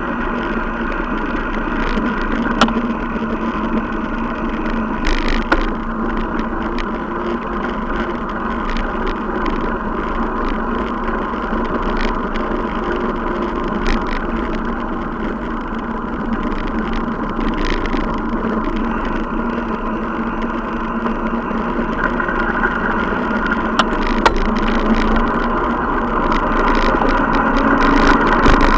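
Steady road and riding noise from a bicycle-mounted action camera on the move: tyre and vibration rumble with a constant hum, punctuated by a handful of sharp clicks and knocks over bumps.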